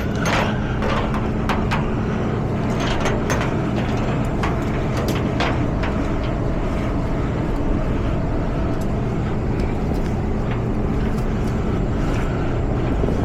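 Tow truck engine idling steadily with a constant low hum, while short sharp clicks and knocks come at irregular moments from straps and hooks being worked to tie down the load.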